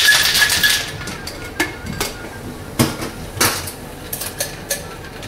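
Glassware and ice clinking as a cocktail is mixed: a dense rattle for about the first second, then half a dozen separate sharp clinks.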